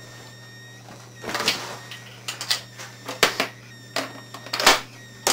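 Clicks and short rattling clatters of an airsoft gun's metal high-capacity magazine and the gun being handled: about half a dozen separate knocks and scrapes, over a steady low hum.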